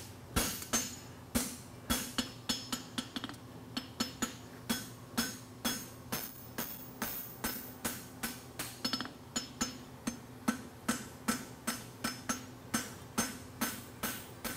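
Hammer blows on a hot steel draft horseshoe bar on an anvil, flattening the shoe. The blows come in a steady rhythm of about two to three a second, each a sharp ringing strike.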